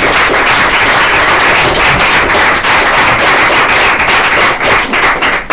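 Audience applauding: many hands clapping at once, dense and steady, stopping near the end.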